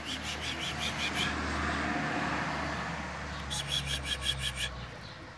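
A motor vehicle passing: a low rumble that swells in the middle and drops away about five seconds in. Two runs of rapid high-pitched ticks, about eight a second, sound over it near the start and again around four seconds in.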